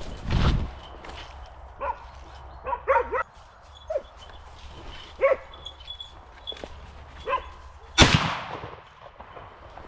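Hunting dogs barking and yelping in short calls, then a single loud shotgun shot about eight seconds in that rings off down the valley.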